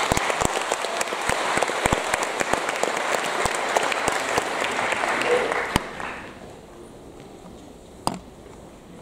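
Audience applauding, dense clapping for about six seconds that then dies away, with a single knock near the end.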